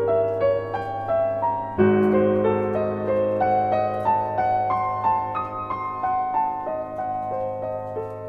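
Background music: a slow piano melody of single held notes over sustained low notes, with a louder chord struck about two seconds in.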